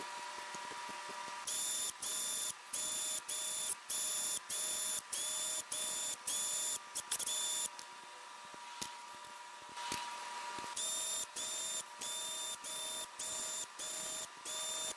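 A small cordless power tool's motor whines in short bursts of about half a second each, running out the camshaft cap bolts. The bursts stop for a few seconds in the middle, then come shorter and quicker near the end.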